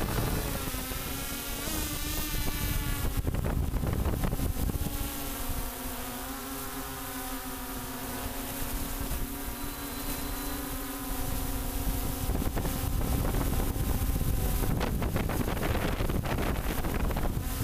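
Multicopter's electric motors and propellers whining steadily in flight, heard from the craft's own camera, the pitch wavering slightly as the throttle changes. Wind buffets the microphone in gusts, most strongly about three seconds in and again near the end.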